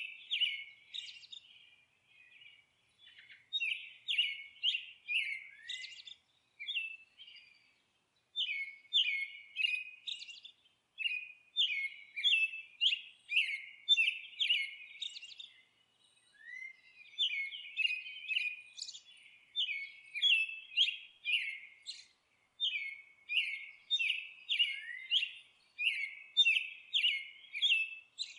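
A songbird chirping: runs of short, high chirps, a few a second, in phrases broken by brief pauses.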